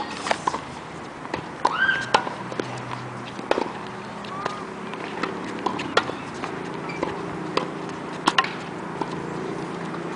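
Tennis rally on a hard court: sharp racquet-on-ball hits and ball bounces every couple of seconds, with a few brief sneaker squeaks on the court surface.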